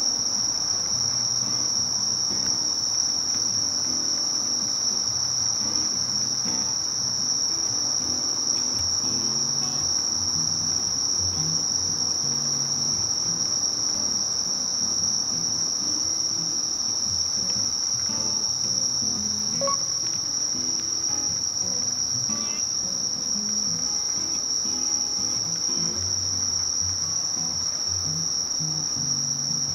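A night insect chorus: a steady, unbroken, high-pitched trill of singing crickets and katydids.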